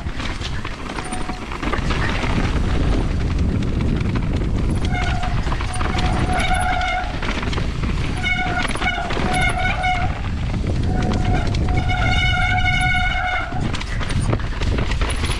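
Mountain bike running fast down a rough dirt trail: a steady rumble of tyres and wind on the mount. About a third of the way in, a steady high whine from the bike starts coming and going in several spells, the longest one near the end.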